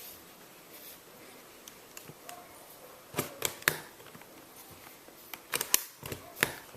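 Sharp plastic clicks and knocks as an Asus Eee Pad Transformer tablet is pushed into the hinge of its keyboard dock and snaps into place. Three clicks come about halfway through, then a quicker cluster near the end.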